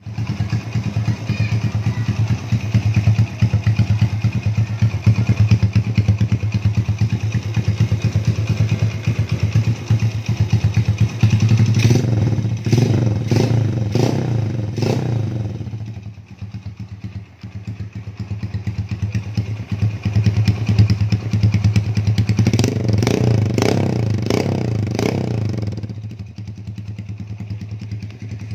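Small RC110 motorcycle's single-cylinder engine idling, with two runs of quick throttle blips, about five revs each: one about twelve seconds in, the other about twenty-two seconds in.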